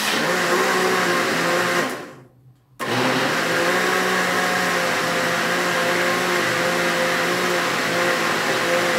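Electric countertop blender motor running while blending a thick liquid soap mixture, pulsed: it stops about two seconds in, pauses for under a second, then starts again and runs steadily.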